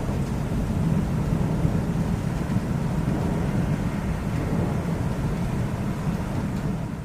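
Low, rolling thunder rumbling steadily, without any sharp crack, easing off slightly near the end.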